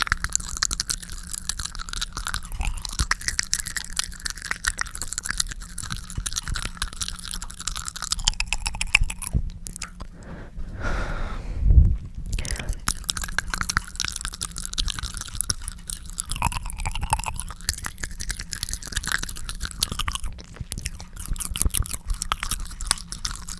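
Close-miked wet mouth sounds of a tongue smearing and slurping against the lips and mouth: a dense run of fine, moist crackles and clicks, with a brief pause and a louder puff about halfway.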